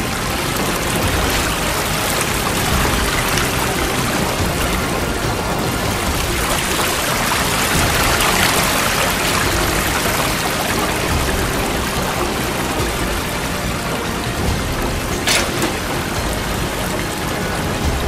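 Water running and splashing steadily into a cistern from a steam engine's pump, swelling about halfway through. One short sharp click comes near the end.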